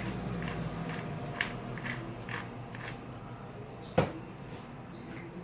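Pepper being sprinkled onto a raw whole chicken: soft, irregular ticks and rustles, with one sharp knock about four seconds in. A low steady hum fades out in the first second or so.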